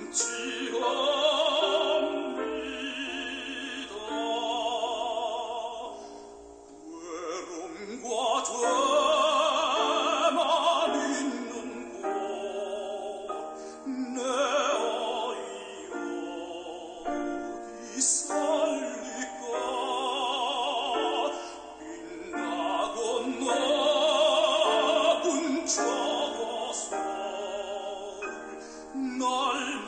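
Classical operatic singing with wide vibrato over a sustained accompaniment, phrases rising and falling with short breaks between them.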